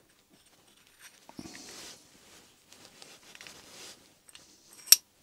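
Small steel collet-stop parts being handled and screwed together by hand: scraping and rubbing of metal on metal, then one sharp metallic clink near the end.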